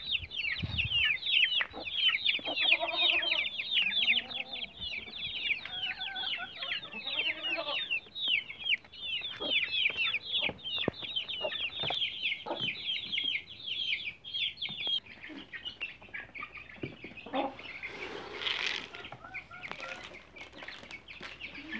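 A flock of young chicks peeping rapidly and continuously, high-pitched and down-slurred, with a hen's lower clucking calls twice in the first few seconds. The peeping thins out after about fifteen seconds, and a brief rustle follows near the end.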